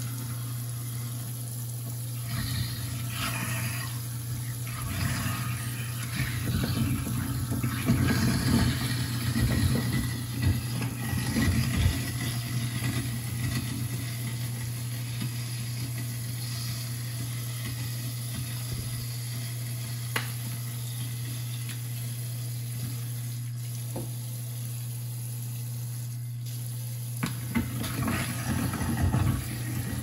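InSinkErator garbage disposal running with tap water flowing into it, its motor humming steadily while food is pushed down the drain. Rougher grinding and churning swells from about two seconds in to about thirteen seconds, and again near the end.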